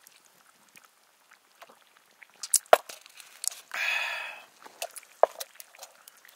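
Light clinks and knocks of a stainless steel camp mug and utensils handled on a wooden board, with one sharper knock as the mug is set down. A short breathy rush comes about four seconds in.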